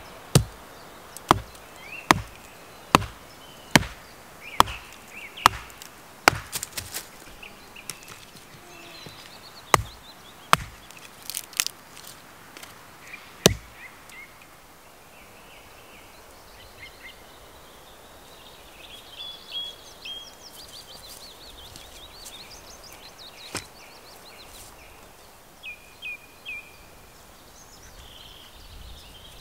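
Hatchet chopping kindling on a wooden chopping block: sharp chops about one a second for the first seven seconds, a few more between ten and fourteen seconds in, and a single one later. Small birds chirp in the second half.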